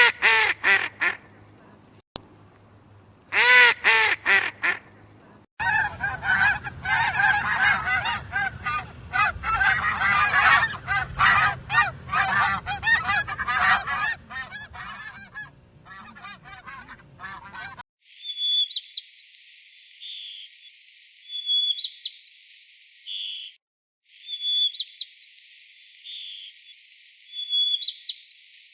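Domestic waterfowl calling: two loud single honking calls, then a whole flock honking and calling over one another for about twelve seconds. After that comes a different, high, chirping call that repeats in short phrases about every three seconds.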